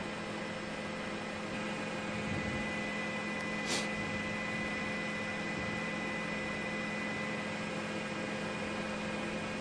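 Steady hiss with a low electrical-sounding hum and a few faint steady tones, broken by a short high hiss a little under four seconds in.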